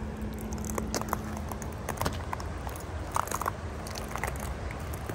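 Footsteps crunching on frozen snow and ice crust, irregular crackles and crunches over a steady low rush.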